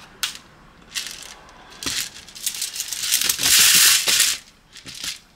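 Handling of an airsoft pistol and its gear: scattered clicks and rattles, then a dense hiss lasting about a second a little past three seconds in, followed by a few more clicks.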